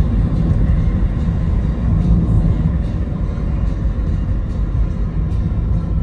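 Steady low rumble of a car driving on a road, tyre and engine noise heard from inside the car.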